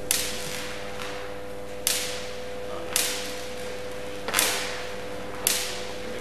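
High-voltage arcs of a 30 kV Jacob's ladder: five sharp electrical cracks, roughly one a second, each ringing out briefly in the hall, over a steady electrical hum.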